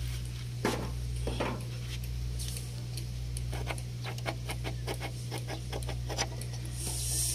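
Clicks and scraping from a hand working the plastic latch of a vehicle's front air-grille lock, over a steady low hum. Near the end comes a brief spray hiss, WD-40 going onto the lock to loosen rust.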